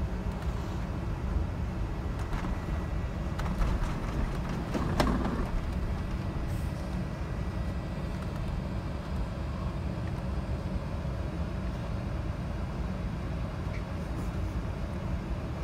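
Steady low cabin rumble of an Airbus A380-861 with GP7200 engines taxiing at low thrust, heard from inside the cabin. A single knock sounds about five seconds in.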